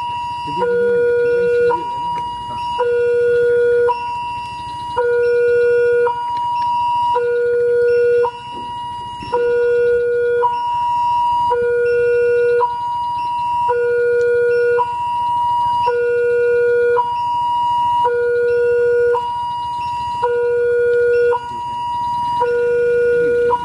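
Level crossing warning alarm sounding, an electronic two-tone signal that alternates between a low and a high tone, each held about a second, repeating steadily. It means a train is approaching the crossing.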